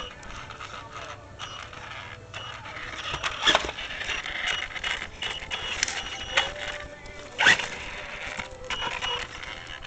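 Axial Yeti RC rock racer running on its 2S LiPo, its electric motor and drivetrain whirring as it crawls over rocks and logs, with scattered clicks. Two sharp knocks, about 3.5 and 7.5 seconds in, as it bumps down.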